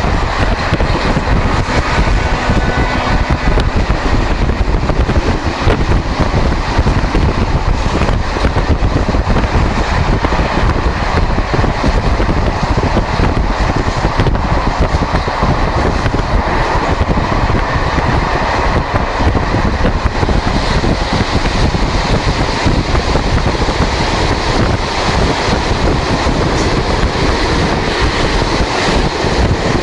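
Steady rumble of a moving vehicle heard from on board, with wind buffeting the microphone.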